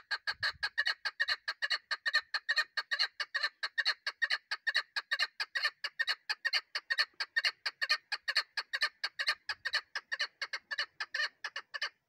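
Caged female chukar partridge calling: a long run of rapid, evenly repeated clucking notes, about five a second, without a break.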